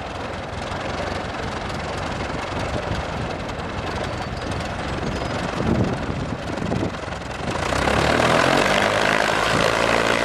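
Small propeller airplane's engine running, then revving up louder about seven and a half seconds in as the plane sets off.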